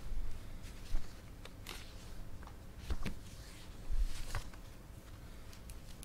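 Low room noise broken by several short, soft thumps and clicks. The sharpest comes about a second in.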